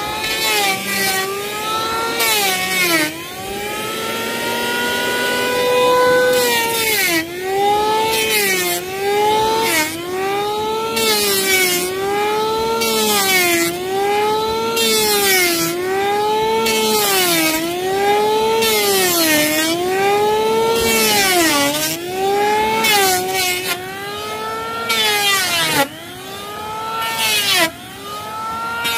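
Electric hand planer shaving a wooden board in repeated strokes, about one every second and a half. Its motor whine drops in pitch each time the blades bite into the wood, with a hiss of cutting, then rises again between strokes.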